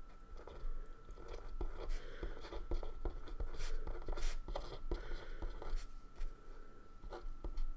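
A pen writing on black paper: irregular short scratches and taps of the tip as letters are formed.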